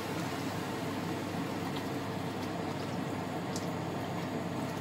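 Chicken stock poured in a steady stream from a jug into a cast-iron pot of rice, beans and peas, the liquid splashing onto the food.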